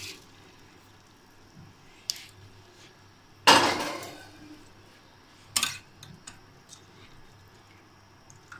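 Metal pot and steel strainer knocking: a loud clank about three and a half seconds in that rings briefly, with softer knocks about two seconds and five and a half seconds in and a few small ticks after.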